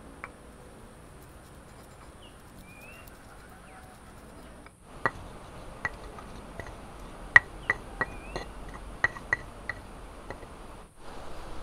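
Irregular sharp clinks of utensils against dishes, about a dozen in the second half, each with a short ring. A bird chirps briefly twice over a faint outdoor background.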